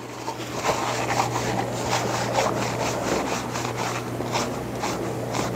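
Plastic measuring cups being wiped dry with a towel: cloth rubbing and rustling with small clicks and knocks, over a steady low hum.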